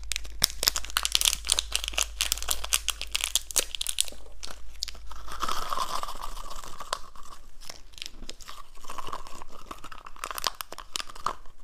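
Close-up crunching of small hard candies, with crinkling of a small plastic bag, for the first few seconds. After that come two stretches of a weak, breathy whistle tone: a small toy whistle that blows not very loud.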